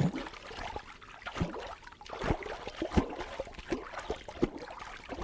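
Water sounds standing in for a squid: irregular drips, plops and splashes over a faint wash of moving water.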